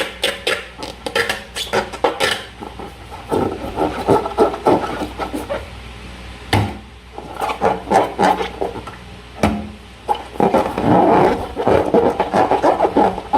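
Slime being worked by hand: quick runs of sticky clicks and pops, with denser stretches of crackling and squelching midway and again near the end.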